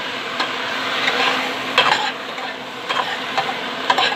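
Chicken pieces frying with garlic and onion in a hot pot, just splashed with fish sauce, with a steady sizzle. A utensil stirs them, making irregular scrapes and clinks against the pot.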